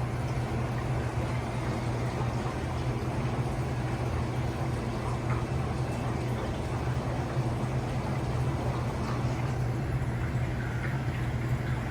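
Aquarium equipment running steadily: a low hum with a continuous bubbling, watery hiss.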